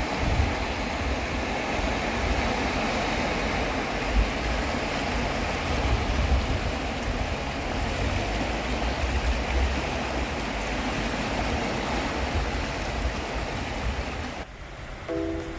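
Small sea waves washing and lapping over shoreline rocks: a steady surf wash with a low, gusty rumble underneath. It cuts off about a second before the end, where music starts.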